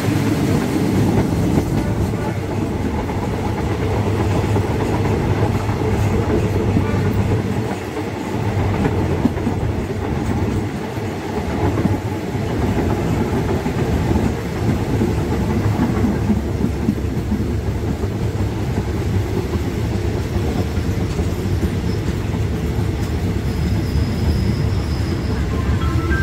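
A passenger train running along the rails: a steady rumble of wheels on track that holds at much the same level throughout.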